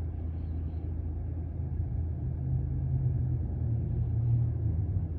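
Steady low hum of a parked car's climate-control blower with the ignition on and the AC running.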